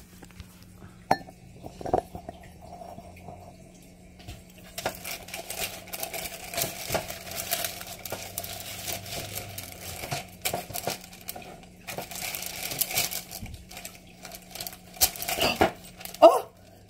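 Hands flexing a silicone half-sphere mold and pushing chocolate shells out onto wax paper and plastic sheeting. A few light clicks come first, then from about five seconds in there is steady rustling and crinkling with scattered small knocks. A steady low hum runs underneath throughout.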